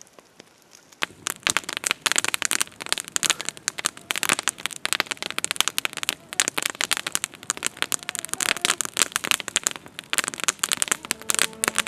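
Wood campfire crackling, with many sharp, irregular snaps and pops from the burning logs, starting about a second in.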